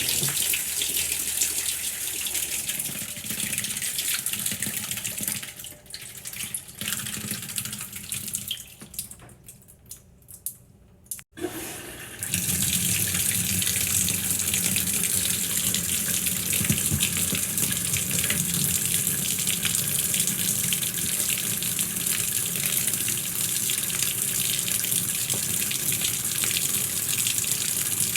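Water running from a tap. The flow thins and falters between about 6 and 11 seconds in, there is a sharp click, and then it comes back on full about 12 seconds in and runs steadily.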